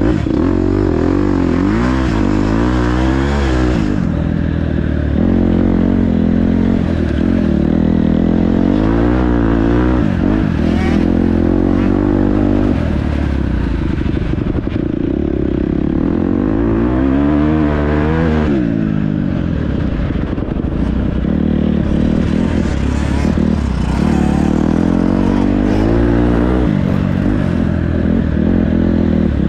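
Dirt bike engine under race riding, its pitch rising and falling again and again as the throttle is opened and shut.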